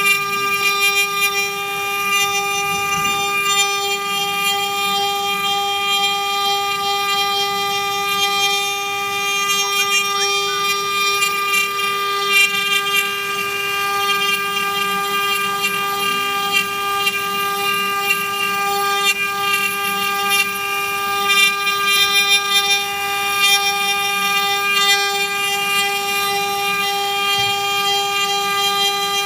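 Mini CNC wood-carving router running, its spindle giving a steady, unchanging whine with a rough cutting hiss over it that rises and falls.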